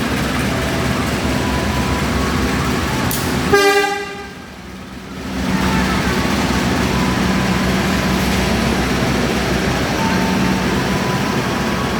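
Train running past with a steady rumble, and a short, loud horn toot about three and a half seconds in.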